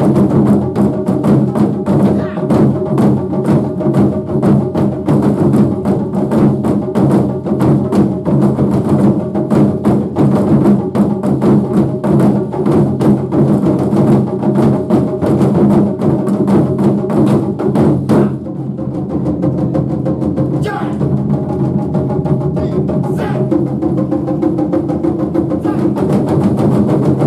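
Japanese taiko drums played in a fast, dense rhythm of strikes. About 18 seconds in, a hard hit ends the fast passage and the playing drops to a quieter, sparser stretch.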